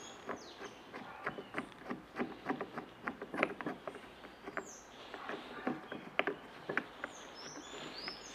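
Irregular plastic clicks and knocks from a Caiaker kayak pedal drive's foot pedal being handled and fitted onto its crank arm. Birds chirp in the background near the start, in the middle and near the end.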